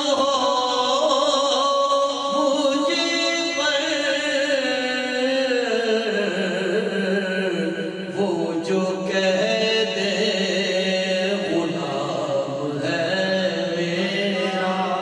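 A man singing a naat, an Urdu devotional song in praise of the Prophet, solo into a microphone, in long held, ornamented notes. The melody steps down to a lower pitch about five seconds in.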